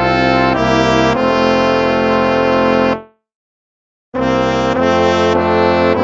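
Instrumental hymn music in a brass sound, full sustained chords changing every half second or so. About halfway through it ends on a held chord that fades out, there is about a second of silence, and then the music starts again: the break between one hymn and the next.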